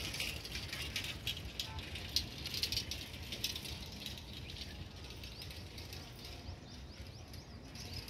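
A crowd of birds chirping and chattering in a dense, rapid stream of short calls. It is busiest in the first few seconds and thins toward the end, over a low steady rumble.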